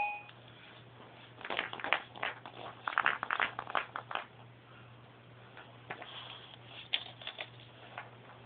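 Clear plastic rattle ball with loose pieces inside, shaken and handled by a toddler: rattling clicks come in two bursts in the first half, then a few scattered single ticks.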